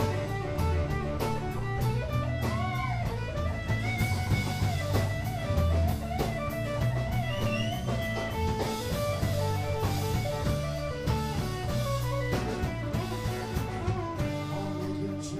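Live rock band playing an instrumental passage: electric guitar over bass guitar, drum kit and acoustic guitar.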